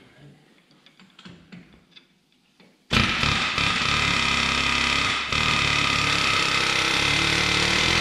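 Pneumatic air hammer driving against the stuck steel cap on a John Deere 6400 front-axle hub. After a few faint handling clicks, the air hammer starts abruptly about three seconds in and runs steadily and loudly for about five seconds, with a brief break partway through.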